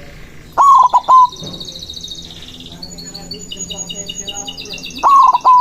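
White-morph zebra dove (perkutut) cooing its loud three-note phrase twice, about a second in and again near the end. Small birds keep up a high, rapid chirping in between.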